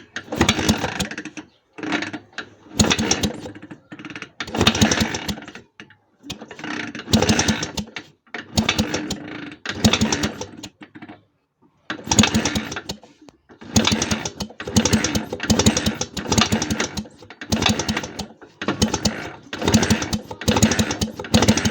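Repeated bursts of rapid mechanical clicking, each lasting about a second and coming roughly every one and a half seconds, from hand work on a motorcycle engine.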